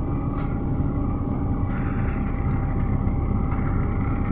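Mercedes-Benz O405 city bus heard from inside the cabin while driving: a steady low engine rumble and road noise, with a thin steady whine.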